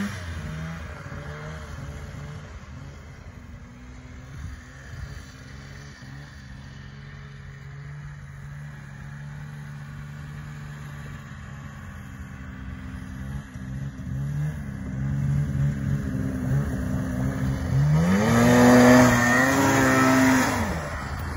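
Snowmobile engine running steadily at a distance, then revving hard near the end, the pitch climbing and the sound growing loud for about two seconds before dropping off as the sled lifts its skis into a wheelie.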